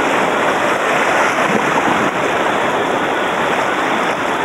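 Shallow river rapids rushing around a bamboo raft: a steady, loud rush of water.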